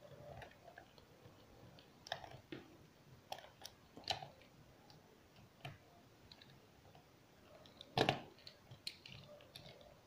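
Small screwdriver driving the screws into the plastic back shell of a DualShock 4 controller: faint, scattered clicks and ticks of the tool and the handled plastic, with one louder knock about eight seconds in.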